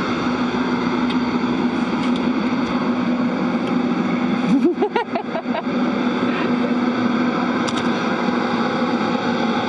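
Steady whir and hiss of the space station's ventilation fans, with a constant low hum. About five seconds in comes a brief clatter with a short rising sound.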